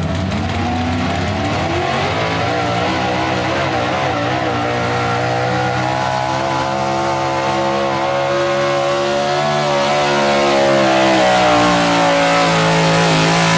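Modified stock Chevrolet pickup's gasoline engine at wide-open throttle under full load, pulling a weight-transfer sled. The revs climb over the first second, then hold high and nearly steady with slight wavering, growing a little louder in the last few seconds.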